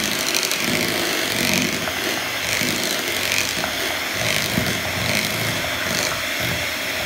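Electric hand mixer running, its beaters whipping through boiled, mashed sweet potato in a ceramic bowl, with the sound swelling about once a second as the beaters are worked around the bowl. The beating draws the stringy fibres out of the potato onto the beaters.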